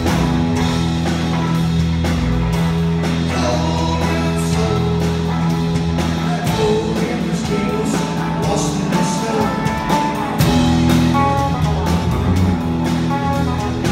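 Live rock band playing: electric guitar and a drum kit, loud and steady, heard from the audience.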